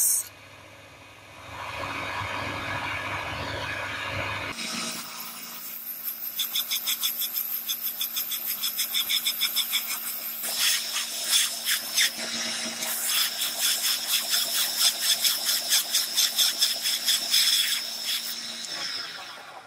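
Bench belt sander running with a steady motor hum while a steel file is pressed flat on the abrasive belt, grinding the file's toothed face. The sound is a harsh, rapidly pulsing rasp. The sound changes abruptly about four and a half seconds in, and the rasping grows stronger in the second half.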